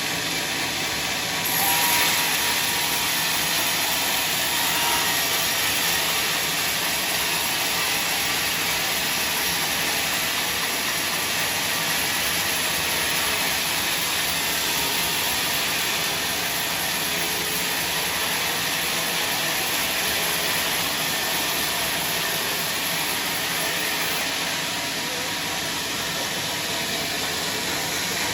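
Band sawmill running, its blade cutting through a log with a steady hissing noise. The noise grows louder about a second and a half in and eases off near the end.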